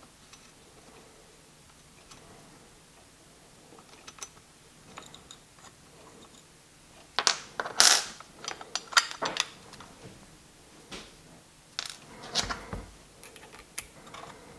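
Small metallic clicks and taps from an Allen wrench and the pistol's top-rail screws as they are backed out and set down on a wooden workbench. It is quiet at first, with a cluster of sharp clicks and clatter about seven to nine seconds in and a few more around twelve seconds.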